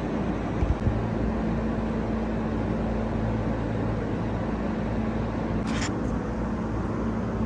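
Heavy engine running steadily, typical of a concrete mixer or pump truck at a pour, with a short scrape or hiss a little before six seconds in.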